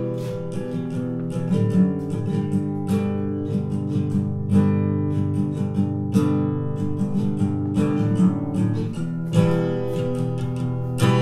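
Recorded acoustic guitar music played back through an Infinity IL-30 two-way tower loudspeaker, with plucked notes and chords running on continuously.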